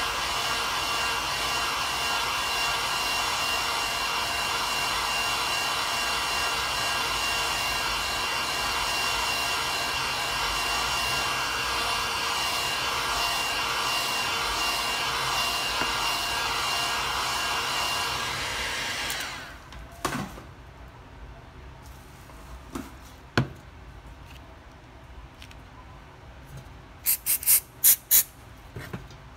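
Heat gun blowing steadily, warming a phone's back panel to soften its adhesive, switched off about two-thirds of the way through. A couple of light knocks follow, then an aerosol spray can gives several short hisses near the end.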